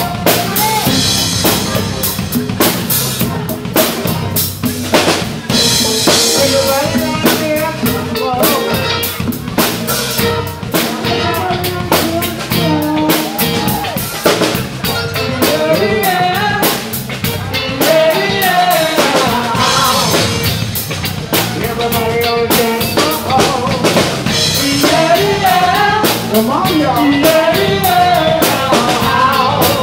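Live band playing an up-tempo dance song, with a drum kit keeping a steady beat under guitars and melody lines.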